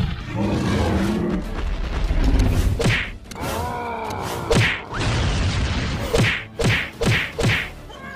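Cartoon fight sound effects: heavy low thuds and a falling, pitched groan-like cry near the middle, then a quick series of five or six sharp punch hits in the second half.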